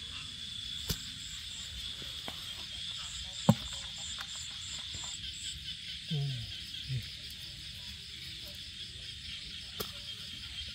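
A chorus of night insects with a steady high-pitched buzz, joined for a couple of seconds by another insect's even pulsing trill. A few sharp clicks break through, the loudest about three and a half seconds in, and two short low sounds come around six and seven seconds in.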